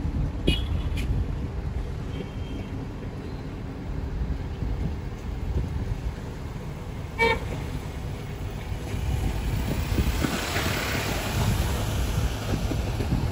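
Steady low rumble of a vehicle on the road, with short toots of a vehicle horn: two in the first second and one about seven seconds in. A rush of hiss swells and fades about ten seconds in.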